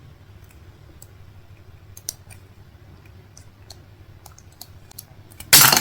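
Scattered light clicks and taps over a low steady hum, then a loud rustling scrape near the end.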